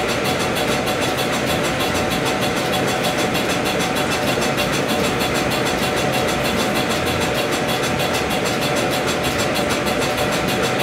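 Steady mechanical rumble and hum of a simulated lift ride, an engine-like drone with an even hiss and a fast, regular pulsing that does not change.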